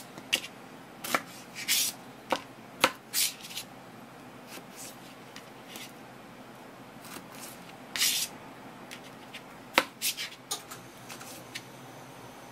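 Kitchen knife trimming the stem ends off okra pods on a paper-covered wooden cutting board: irregular sharp knocks as the blade cuts through the pods onto the board. A few short rustles of the paper sheet come as the pods are handled.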